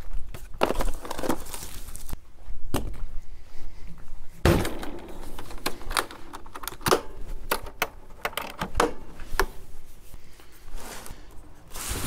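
Handling of a Setpower RV45s 12-volt fridge-freezer: the lid is shut with a heavy thud, followed by a series of sharp clicks and knocks from its latches and body being handled.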